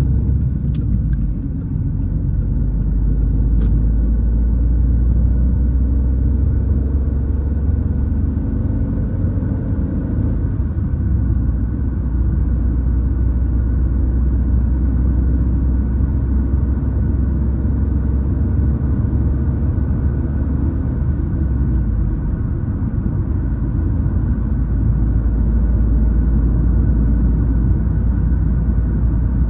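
Car driving, heard from inside the cabin: a steady low rumble of engine and tyres on the road, with the engine note rising as the car picks up speed several seconds in.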